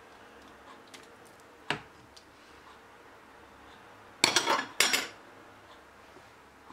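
Metal ladle knocking against a stainless-steel pot: one short knock a little under two seconds in, then two loud clatters just after four seconds as the ladle is lifted out and set down.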